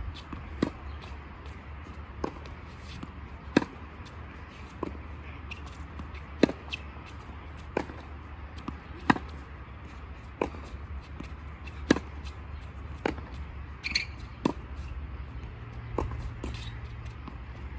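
Tennis rally on a hard court: sharp racket strikes and ball bounces about every second and a quarter, some louder than others, over a low steady background hum.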